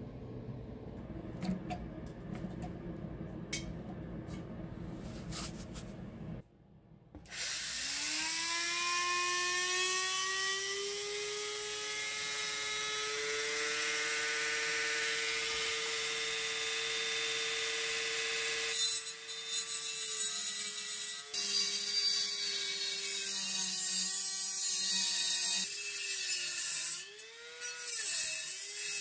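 A Dremel-type high-speed rotary tool spins up with a rising whine about seven seconds in and runs steadily. Later its pitch drops in steps and dips as it comes under load in the work. Before it starts there is a low rumble with a few clicks.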